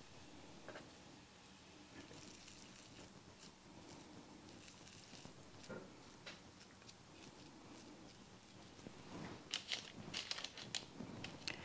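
Faint soft squishing of hands rolling raw sausage, cream cheese and Bisquick dough into balls, with light clicks and taps toward the end as the balls are set on a metal baking sheet.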